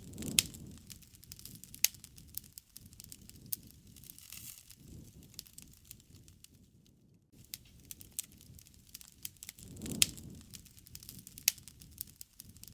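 Wood campfire crackling, with irregular sharp pops and snaps and a few louder cracks. A low rush of burning swells up near the start and again about ten seconds in.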